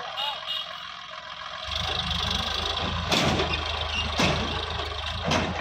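Sonalika DI 750 RX tractor's diesel engine picking up under load about two seconds in and running steadily, with three sharp knocks about a second apart.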